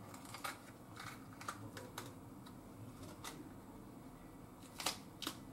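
Green bell pepper being broken open by hand: faint, irregular crisp snaps and crackles, with two sharper cracks close together near the end.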